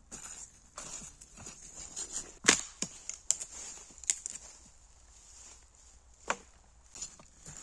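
Dry firewood being handled: a handful of sharp wooden cracks and knocks at uneven intervals, the loudest about two and a half seconds in.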